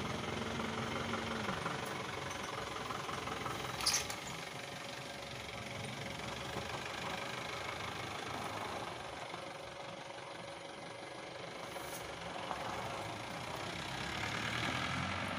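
Steady mechanical running noise like an idling engine, with one sharp click about four seconds in.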